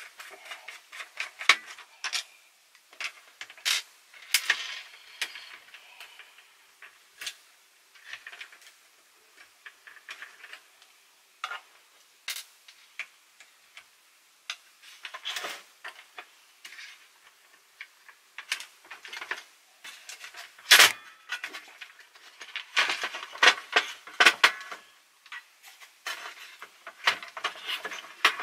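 Screwdriver and hands working on the opened plastic chassis of a Philips N2234 cassette recorder, which is being taken apart to reach its drive belt. Irregular small clicks, taps and scrapes, with a sharper knock about 21 seconds in.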